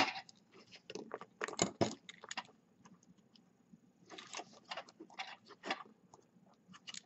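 A small metal hand tool scraping and clicking against a quadcopter's brushless motor as it is pried apart, in light scattered clicks, one run about a second in and another around four to six seconds.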